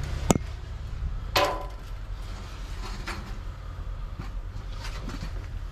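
Knocks and clatter of things being moved about inside a dumpster: a sharp click at the start, a louder clatter about a second later, then a few fainter knocks, over a steady low rumble.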